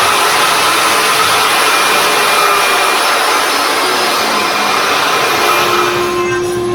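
A high-speed electric power tool running steadily at full speed, with a hissing whine; it starts abruptly just before this.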